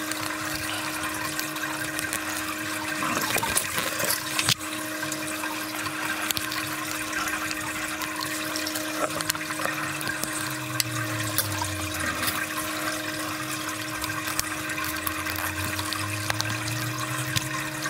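Water circulating through a recirculating deep water culture system, with a steady pump hum. Small clicks and taps of plastic drip fittings and tubing being handled sound over it, busiest around four seconds in.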